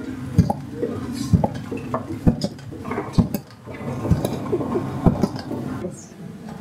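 A long wooden paddle stirring a thick stew in a large metal cooking pot, knocking against the pot about once a second with each stroke.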